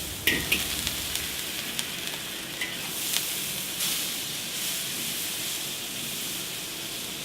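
Boiled egg noodles frying in hot oil in a wok, with a steady sizzle and a few sharp clicks of a utensil against the pan in the first few seconds.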